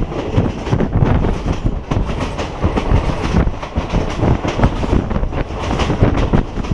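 Train running along the track, its wheels clattering over the rail joints in a loud, continuous stream of clicks and knocks over a steady rumble.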